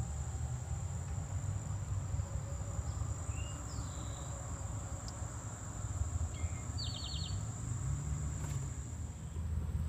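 Quiet outdoor background: a steady high-pitched insect trill over a low rumble, with a couple of short bird chirps, one about midway and one around three-quarters through.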